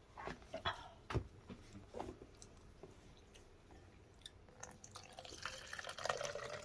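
A plastic lid pressed onto a glass food container, giving a few sharp clicks in the first two seconds, then faint eating and spoon sounds. About five seconds in, a tap starts running and grows louder.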